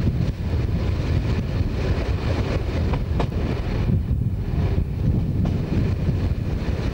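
DE II diesel multiple unit running along the line, heard from the side of the moving train: a steady low rumble of wheels on rail, with a few sharp clicks from rail joints or points about three seconds in and again near five seconds.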